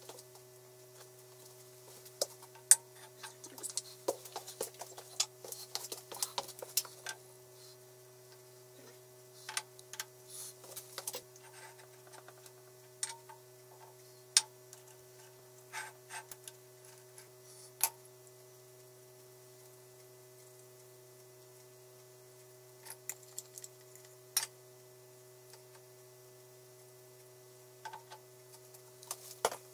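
Steel workshop parts handled and set down on a hydraulic press bed: sparse light metallic clicks and knocks as a four-jaw chuck and steel spacer cylinders are positioned, busiest in the first few seconds. A steady faint hum runs underneath.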